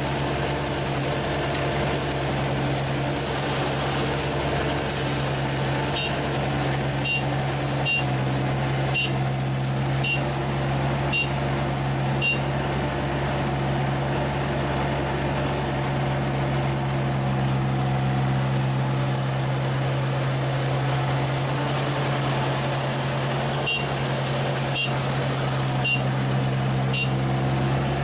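ISEKI 325 rice harvester's engine running steadily under work, with a high electronic beep sounding about once a second, first a run of seven and later a run of four.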